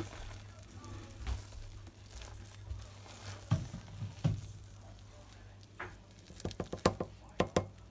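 Serving spoon scooping soft, gooey chocolate cake out of a ceramic slow-cooker crock, with wet squelching and scattered knocks and scrapes of the spoon against the crock and bowl; a quick run of clicks comes near the end as the portion goes into the bowl.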